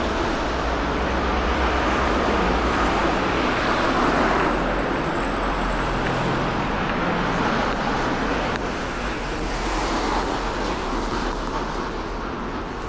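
Steady busy city street traffic: cars and other vehicles running past, a little louder about four seconds in.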